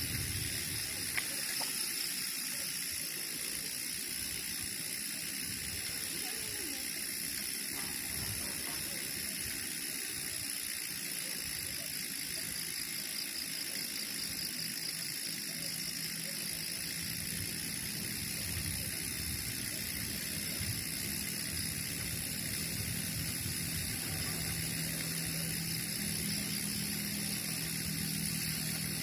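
Mountain-bike rear freehub ratchet clicking rapidly as the bike coasts, over steady tyre and wind noise. A low steady hum comes in near the end.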